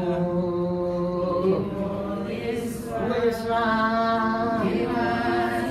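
A woman's voice singing a slow unaccompanied worship chorus, holding long notes that glide from one pitch to the next.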